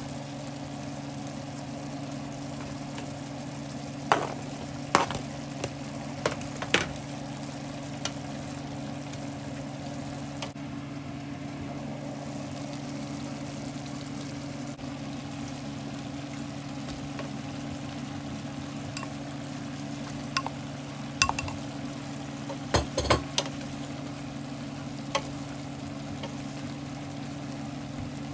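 A covered pot of pork and vegetable stew simmering with a steady sizzle over a low hum. Sharp clinks and knocks of a utensil and lid against the pot come in two groups, a few early on and a cluster about three quarters through.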